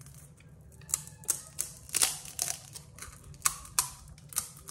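Crisp, hollow pani puri shells crunching: a run of about ten sharp, irregular cracks starting about a second in.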